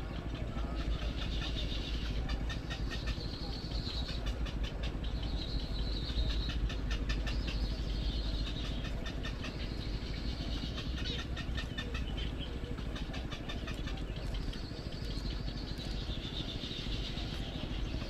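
Egret chicks in the nest giving rapid clicking chatter in long runs, with a high thin call in stretches, over a steady low rumble.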